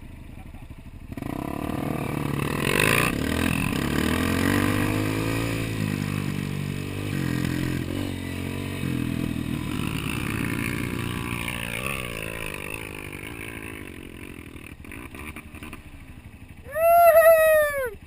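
Honda Tornado 250 single-cylinder trail motorcycle engine starting to pull about a second in, its pitch rising and falling as it is revved through the ride, then fading away. Near the end a loud, high rising-and-falling call lasts about a second.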